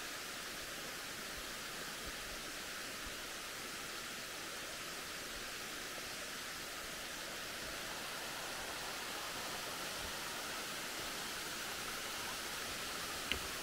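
Steady outdoor rushing hiss, even throughout and a little louder in the second half, with one short click near the end.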